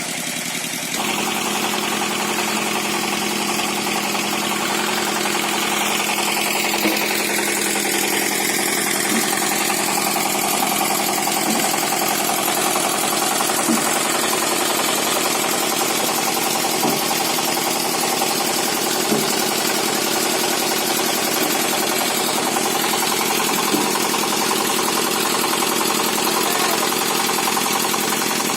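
A machine engine running steadily, growing louder about a second in, with faint knocks every two seconds or so.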